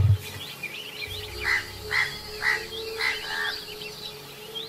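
Birds calling in forest: a run of about five matching calls roughly half a second apart, starting about a second and a half in, over smaller, higher chirps.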